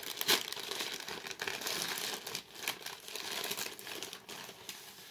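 Packaging crinkling and rustling in irregular crackles as a mail-order parcel is opened and handled by hand, with a sharper crackle about a third of a second in.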